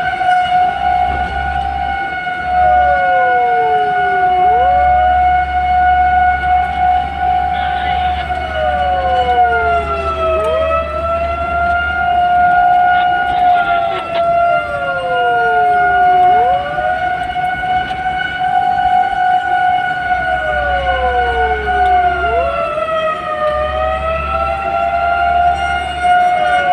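Fire truck sirens sounding continuously: one steady high tone, and over it a wail that slides slowly downward for a few seconds and then sweeps quickly back up, repeating about every five seconds, with a low engine rumble underneath at times.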